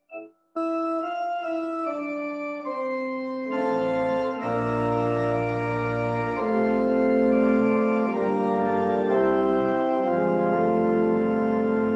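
Church organ playing the opening music of a service. It starts with a single line of held notes; about three and a half seconds in, full sustained chords with low pedal bass notes come in.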